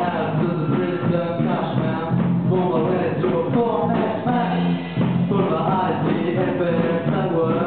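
A live rock band playing: a young male singer's voice over electric guitars, bass guitar and a drum kit.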